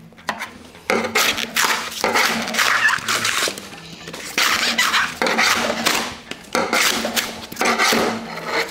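Poured foam insulation on a water heater tank being torn and scraped off by hand, in a series of noisy tearing pulls about a second each.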